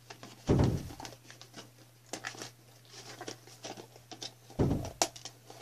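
Toy packaging of cardboard and plastic being handled and cut open, with small crinkles, tears and clicks throughout. Two dull, heavy thumps, about half a second in and again near the end, are the loudest sounds.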